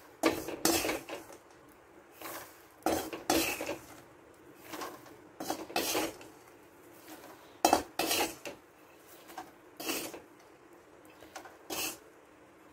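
Freshly salt-roasted peanuts rattling in a metal mesh strainer as they are shaken to sift out the roasting salt, in short bursts about once a second.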